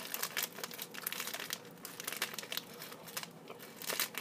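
Plastic Pocky wrapper crinkling as it is handled, a run of quick, irregular crackles.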